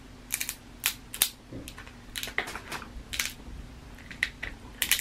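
Snow crab shell cracking and snapping as crab legs are broken open with a metal crab tool and by hand: an irregular run of sharp crackles and clicks, some louder than others.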